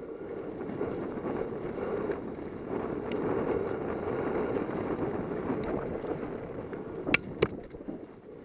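Mountain bike rolling fast down a dirt singletrack: a steady rush of tyres on dirt with the bike rattling, and two sharp knocks a fraction of a second apart near the end.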